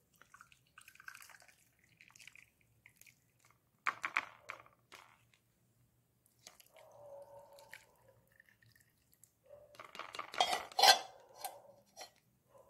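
Metal kitchen vessels clinking and knocking while hot kadha is poured in short stretches. There is a clatter of knocks about four seconds in and a louder one near the end.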